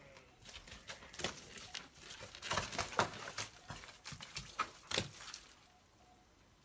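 Horses' hooves stepping and shifting in wet mud: an irregular run of short clicks and knocks, thickest about halfway through, that dies down near the end.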